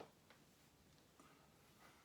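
Near silence: room tone with a sharp click at the very start and a fainter one shortly after.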